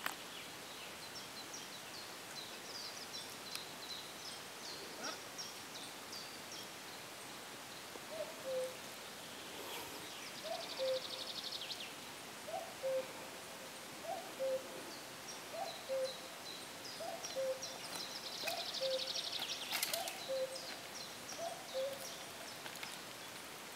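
Common cuckoo calling its falling two-note "cu-coo", repeated steadily about once every second and a half from about eight seconds in. Small songbirds chirp high above it, mostly in the first half.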